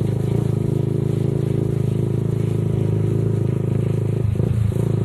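Motorcycle engine running steadily as the bike rides along, a constant low rumble with a haze of road and wind noise over it.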